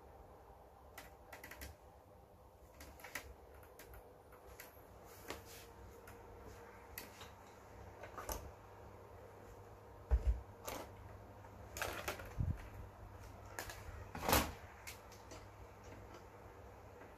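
Irregular light clicks and knocks of handling, with a few louder knocks about ten, twelve and fourteen seconds in.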